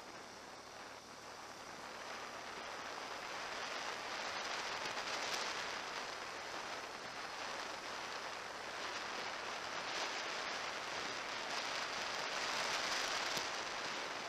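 Water rushing, a steady hiss that grows louder a few seconds in.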